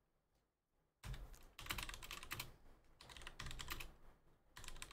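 Typing on a computer keyboard: quick runs of key clicks starting about a second in, broken by short pauses.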